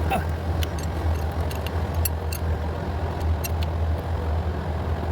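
Scattered light clicks and taps of small parts being handled as a stuck fuel injector is worked at on its fuel rail, over a steady low hum.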